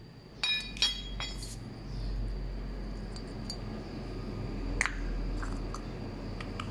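Metal parts of an angle grinder's gear head clinking as they are handled: three sharp ringing clinks in the first second and a half, another about five seconds in, then a few light ticks.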